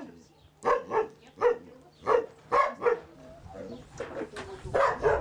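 A dog barking repeatedly in short, separate barks.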